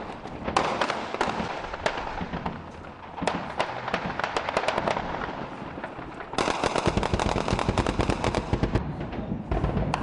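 Gunfire from rifles: many irregular shots and short bursts, thickening past the middle into about three seconds of nearly continuous automatic fire.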